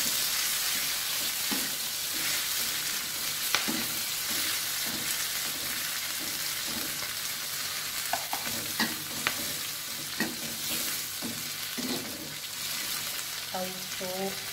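Tomatoes, chillies, shallots and garlic sizzling in hot oil in a metal wok while a metal spatula stirs them, scraping the pan with occasional sharp clinks.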